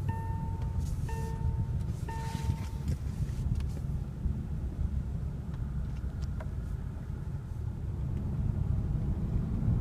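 An electronic warning chime from the car, a long beep repeating about once a second, stops about three seconds in. A steady low rumble of engine and road noise is heard inside the moving car's cabin throughout.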